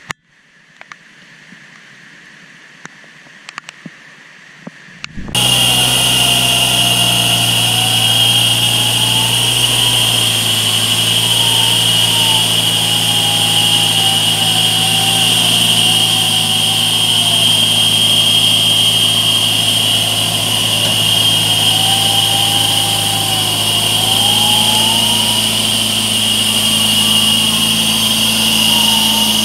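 Faint background with a few clicks, then about five seconds in a sudden cut to a 6x6 off-road truck's engine running steadily. Over the engine is a loud, steady high-pitched whine and a tone that drifts slowly up and down.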